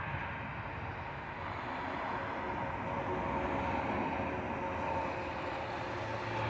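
Airliner on approach, its engine noise a steady rumble with a faint whine, growing slowly louder as it nears.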